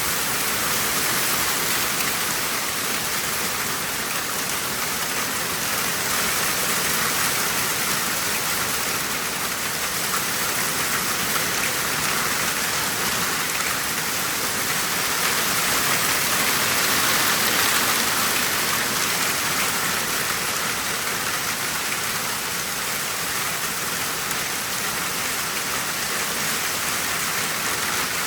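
Heavy rain mixed with hail pelting down in a dense, steady hiss of countless small impacts, swelling briefly past the middle.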